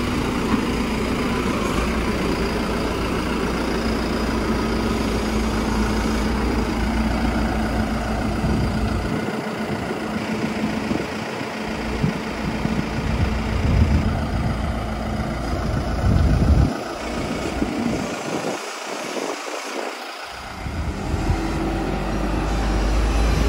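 Engine of a large Marine Travelift boat forklift running as it moves about, a steady low rumble with a hum, the rumble dropping away briefly a couple of times.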